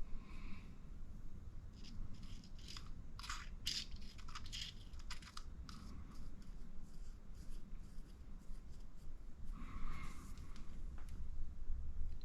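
Light clicks and scratches of small shock parts and a shock-oil bottle being handled while an RC buggy shock is topped up with oil, several close together in the first half.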